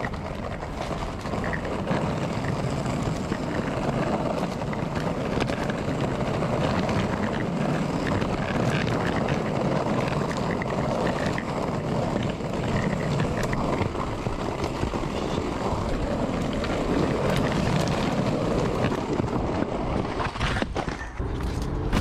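Skateboard wheels rolling over a rough, cracked path, a steady rumbling noise with no letup, with a few knocks near the end.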